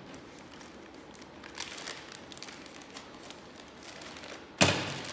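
Clear plastic packaging bags crinkling as they are handled and cut open with scissors, with one sudden loud noise near the end.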